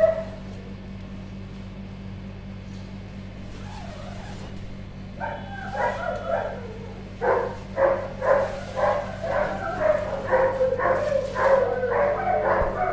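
A dog barking repeatedly, about two barks a second, starting about five seconds in, over a steady low hum.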